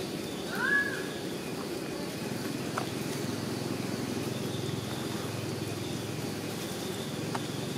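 Steady low background rumble, with one short rising chirp about half a second in and a couple of faint clicks.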